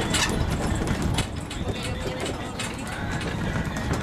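Engine of a small tourist road train running steadily as it rolls along, with scattered clicks and rattles over the rumble.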